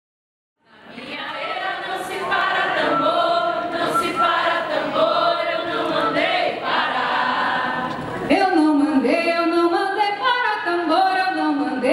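Women's voices singing together, unaccompanied and chant-like, in the style of Afro-Brazilian ritual songs, fading in about a second in. About eight seconds in the song cuts to a woman singing a lead line into a microphone, her pitch sliding between notes.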